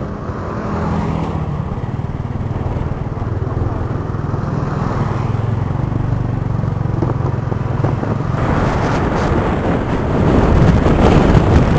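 Motor scooter engine running steadily on the move, with wind rushing over the microphone that grows louder about eight seconds in.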